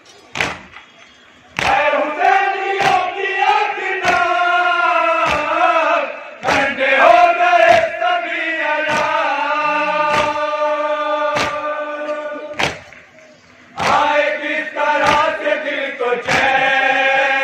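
A noha, a Shia lament, chanted by men's voices, over matam: a steady chest-beating thump about every 1.2 seconds. The voices come in about a second and a half in, break off briefly near the end, then resume while the beats keep time.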